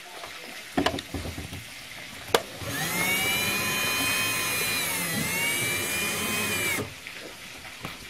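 A small electric motor spins up, runs with a high whine for about four seconds, dips briefly in pitch midway, then winds down. Before it come a few light clicks and knocks, the sharpest about two seconds in.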